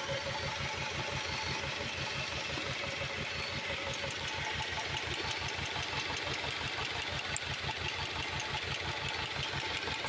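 2002 Honda Accord's 2.3-litre SOHC four-cylinder engine idling with an uneven, pulsing beat from a misfire on cylinder four, which the owner guesses is probably a broken ring or low compression. A light clicking runs over the idle from about four seconds in.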